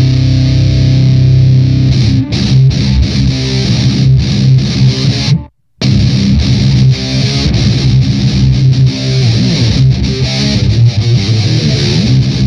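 Electric guitar played through an Electro-Harmonix Nano Metal Muff distortion pedal, heavily distorted: a held chord for about two seconds, then fast picked metal riffs. The sound cuts out completely for a split second about halfway through.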